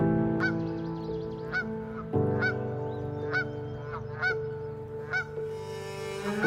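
Canada geese honking repeatedly, about one honk a second, over soft background music with long held notes.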